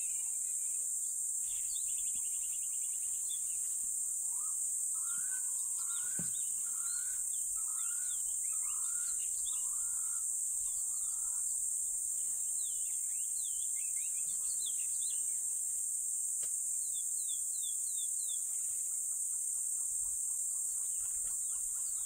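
Steady high-pitched insect chorus, with scattered bird calls over it: short falling chirps here and there, and a run of about six repeated lower notes from about four to eleven seconds in.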